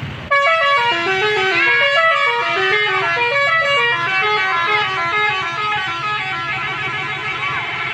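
Bus telolet horn, a set of electrically sequenced air horns on a tour bus, playing a fast tune of short stepping notes that starts abruptly and runs for about seven seconds, with the bus engine running low underneath.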